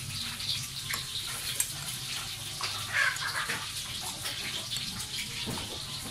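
Metal spoon stirring a thin sauce in a ceramic bowl: liquid sloshing and swirling with scattered light clinks of the spoon against the bowl, a little louder about three seconds in.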